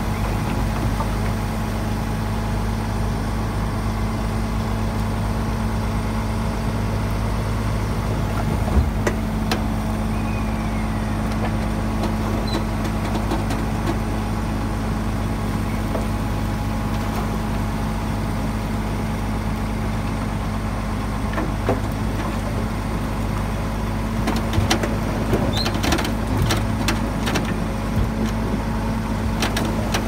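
Heavy diesel engine of earthmoving machinery running steadily at an even pitch, with scattered sharp clicks and knocks that come more often near the end.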